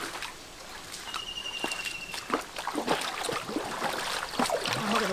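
Feet wading through shallow stream water, with irregular sloshes and splashes as two people step along.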